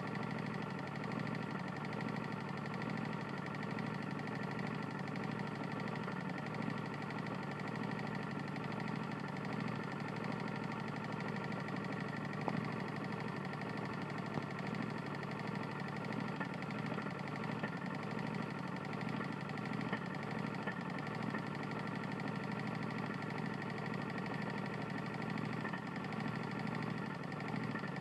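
Tecumseh lawn mower engine running steadily with a rapid knock from a badly worn or failing connecting rod.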